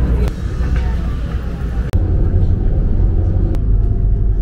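Deep, steady rumble aboard a passenger ferry under way, with faint voices; the sound shifts abruptly about two seconds in.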